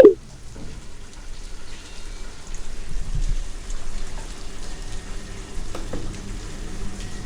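A sudden loud hit right at the start, with a quick falling sweep, then steady rain falling.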